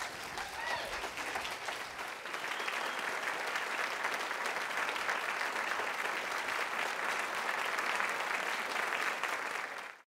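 Audience applauding, swelling over the first two seconds and then holding steady.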